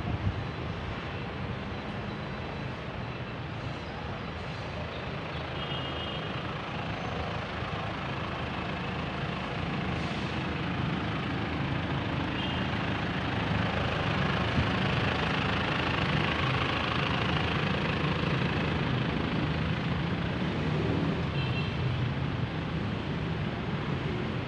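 Steady city traffic: engines and tyres of cars and trucks on a street, a continuous rumble that builds up through the middle. A few faint short high tones come through now and then.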